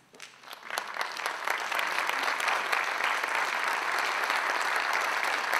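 Audience applauding: a few scattered claps that quickly build into steady, dense clapping.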